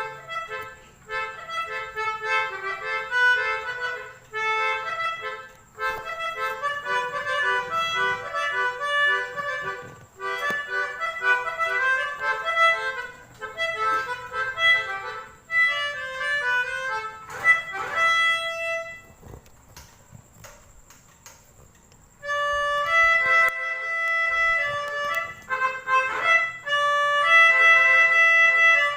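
Basuri telolet melody horn on a motorcycle playing quick runs of reedy, accordion-like notes. It breaks off for about three seconds near two-thirds of the way through, then plays again with longer held notes.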